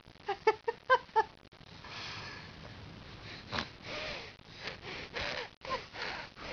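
A few quick giggling syllables, then a baby sniffing and huffing noisily through his nose in repeated breaths while scrunching up his face.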